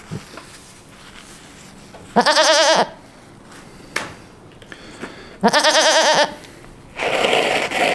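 Boer goat bleating three times, with a quavering, wavering pitch; the last call is hoarser than the first two. A few faint clicks are heard between the calls.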